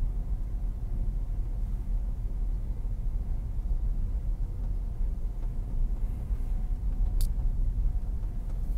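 Steady low rumble of a car driving slowly, heard from inside the cabin, with a single sharp click about seven seconds in.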